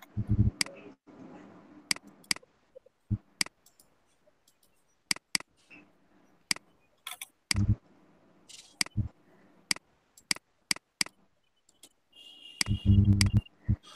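Computer mouse button clicking: sharp single clicks and quick pairs at irregular intervals. A louder, muffled low sound comes near the end.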